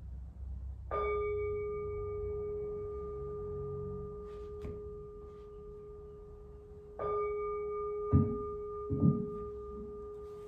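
Buddhist temple bowl bell struck twice, about six seconds apart; each stroke rings on with a clear steady tone that fades slowly. Soon after the second stroke come two dull low thumps, about a second apart.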